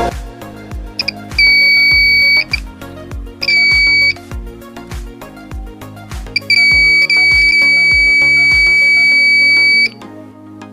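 Electronic buzzer of a homemade door alarm sounding a steady high-pitched tone in three bursts: about a second long, then a shorter one, then a long one of about three seconds. Background music with a beat plays underneath.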